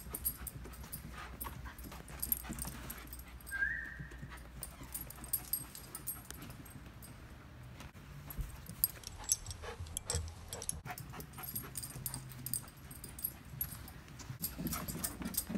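Miniature schnauzer moving about on carpet, with scattered light clicks and rustles and one short high whimper about four seconds in.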